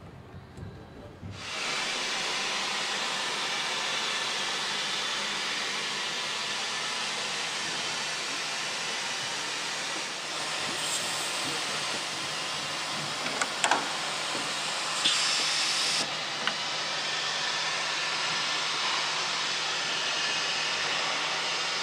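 Steady hissing noise of car assembly-line machinery that cuts in suddenly after a second or so, with a few short, louder bursts of hiss and clicks around the middle.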